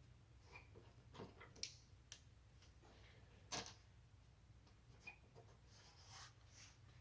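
Near silence with a faint low hum and a few scattered small clicks and taps, the sharpest about three and a half seconds in.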